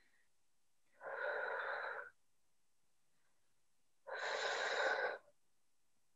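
Two loud breaths, each about a second long and some three seconds apart, from a person straining to hold a forearm plank.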